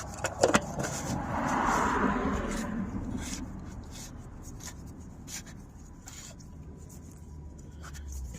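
Oil filter housing cap being handled and screwed back on by hand: a few sharp clicks near the start, a rubbing scrape that swells and fades over a couple of seconds, then faint small scrapes and ticks.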